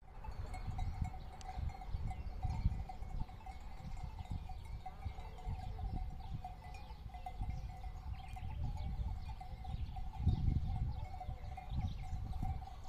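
Many sheep bells clinking steadily from a grazing flock, with wind gusting on the microphone, strongest near the end.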